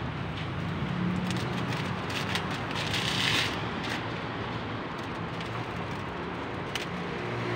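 Steady low workshop hum with scattered light clicks and a short hiss about three seconds in.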